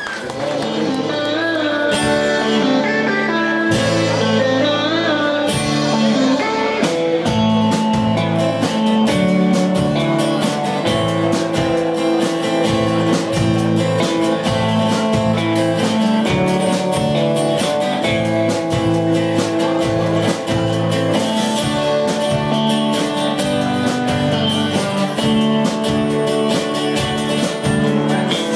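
Live band playing, led by acoustic and electric guitars over a steady drum beat; the low end comes in about two seconds in.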